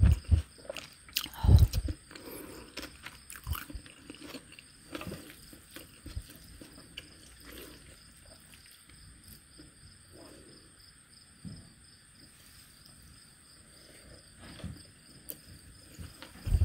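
Close-miked eating of cucumber bibimbap: a spoon scooping from a ceramic bowl and mouthfuls being chewed, heard as scattered soft clicks and mouth noises. One heavier low thump comes about a second and a half in, and another right at the end.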